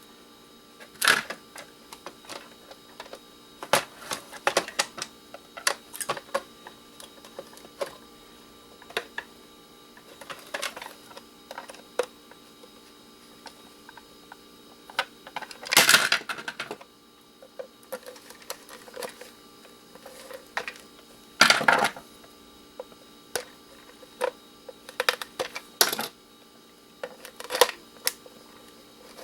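Scattered clicks, taps and small knocks of hand tools working on a plastic-and-metal electronic device's casing to prise it open, with two louder scraping rasps, one near the middle and one about two-thirds through.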